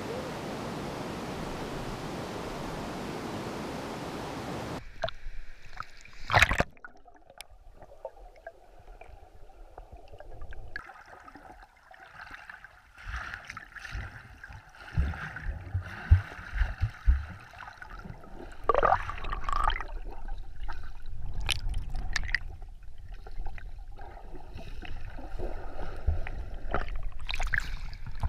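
Steady rush of flowing river water that cuts off sharply about five seconds in as the microphone goes underwater. Then muffled underwater sound of swimmers moving, with gurgles, scattered thumps and splashes, and more splashing near the end as it breaks the surface.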